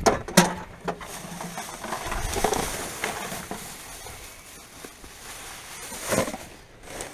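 Rubbish being rummaged through in a bin: bags and loose refuse rustling and crackling, with a few sharp knocks in the first second and another burst of noise about six seconds in.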